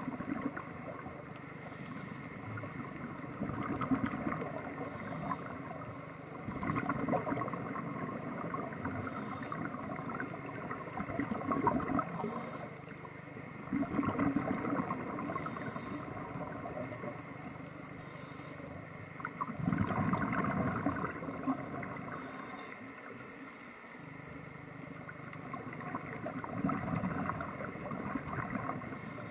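Scuba diver breathing through a regulator underwater: short hissing inhalations every three to four seconds, each followed by a longer rush of exhaled bubbles.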